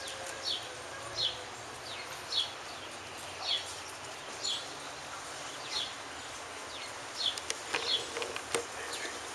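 A small bird chirping over and over, a short high falling chirp about once a second, with a few light clicks near the end.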